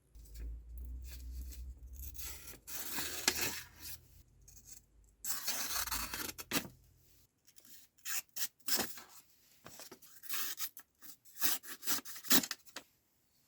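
Rubbing and scraping strokes on the knife: two longer spells of scraping, then a run of short separate strokes, over a low hum that stops about halfway through.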